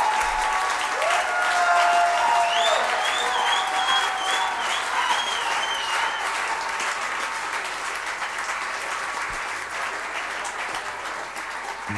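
Audience applauding, the clapping slowly dying away, with a few voices calling out over it during the first half.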